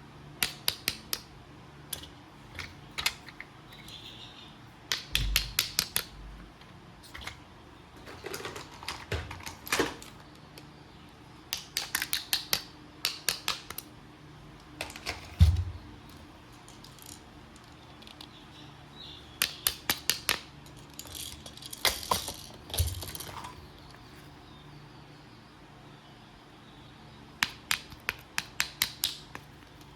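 Sharp clicking and clattering of small hard objects in quick bursts of several clicks, every few seconds, with a few dull thumps between.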